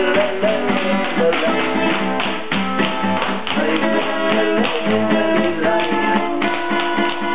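Acoustic guitar played live, plucked and strummed without pause, with scattered sharp clicks of tap shoes on a wooden floor.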